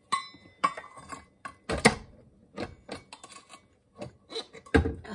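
Spatula scraping and knocking against a stainless steel stand-mixer bowl: a string of sharp metallic clangs, some ringing briefly, the loudest about two seconds in and near the end.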